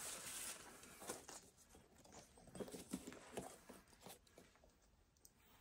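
Faint handling noises: a few soft, scattered taps and rustles as a pair of sneakers and their paper stuffing are lifted and turned in the hands.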